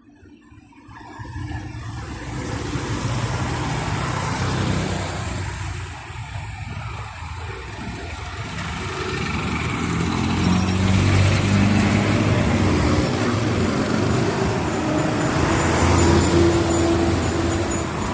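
Town road traffic: motor vehicle engines running and passing, fading in over the first couple of seconds and growing louder about halfway through.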